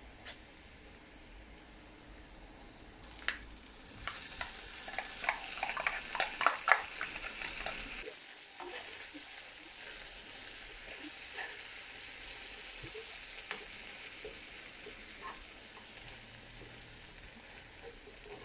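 Sardines in tomato sauce sizzling in a hot frying pan of fried onions while a spoon stirs and breaks them up, clinking and scraping against the pan. The clatter and sizzle are loudest from about four to eight seconds in, then settle to a quieter sizzle with occasional taps of the spoon.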